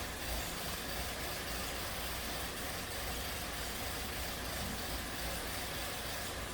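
2016 Volkswagen 1.8 TSI turbocharged four-cylinder engine idling steadily while misfiring on cylinder 4.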